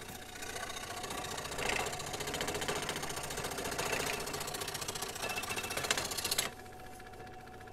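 Scroll saw running and cutting through wood, a fast, even mechanical chatter of the reciprocating blade working around a tight curve. The cutting noise stops suddenly about six and a half seconds in, leaving a quieter steady hum.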